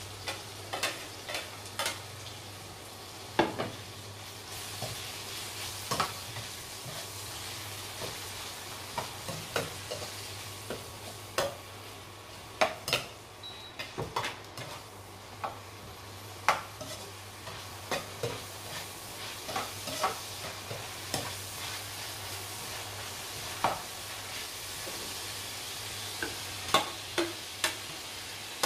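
A meat-and-vegetable stir-fry sizzling in a nonstick wok while a perforated metal spoon stirs it, with irregular clicks and scrapes of the spoon against the pan over the steady hiss. A steady low hum runs underneath.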